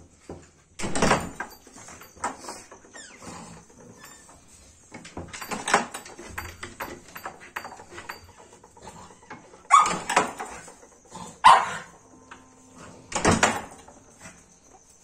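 Pug puppies yapping in several short, loud bursts.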